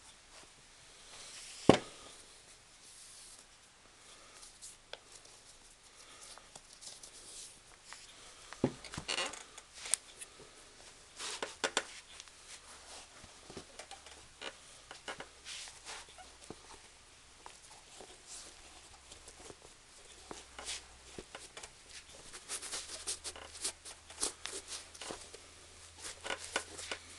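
Leather Sperry Top-Sider boat shoes being worked by a foot: irregular scuffing, rubbing and light taps of leather and sole, with one sharp knock about two seconds in.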